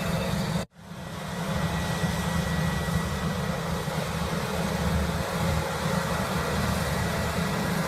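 An engine running steadily, with a brief dropout less than a second in after which the sound fades back up.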